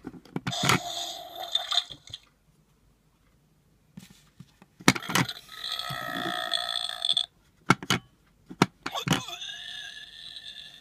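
Ugglys Pet Shop Gross Home toy playing its electronic gross sound effects through a small speaker, three times. Each one is set off by a click as its button is pressed.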